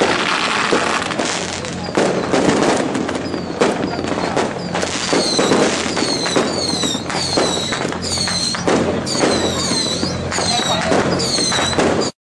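Firecracker strings popping in a dense, continuous crackle. From about five seconds in, high whistles falling in pitch repeat over it, roughly one or two a second.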